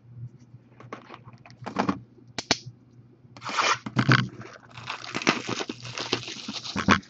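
Plastic shrink wrap on a sealed Panini Contenders football card box crinkling and tearing under the hands. Before that, a few scrapes and a sharp knock as the box is slid across the table; the crackling starts about three and a half seconds in and runs thick near the end.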